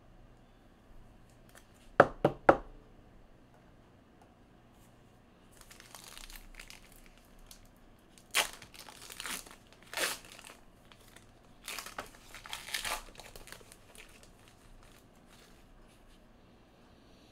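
A foil trading-card pack being torn open and its wrapper crinkled, in several short bursts. Three sharp taps come about two seconds in, before the tearing starts.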